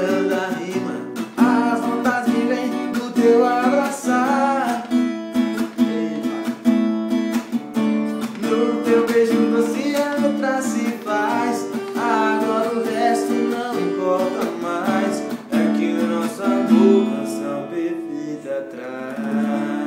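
Acoustic guitar strummed in a steady rhythm, with a young man singing along. The playing grows quieter near the end.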